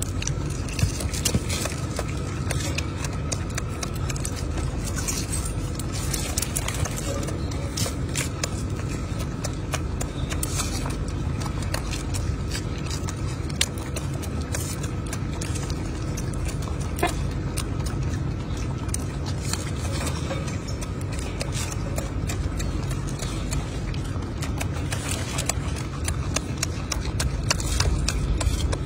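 Small dry clicks and crackles, scattered irregularly, from a golden snub-nosed monkey peeling a boiled egg's shell with its fingers and eating, over a steady low rumble.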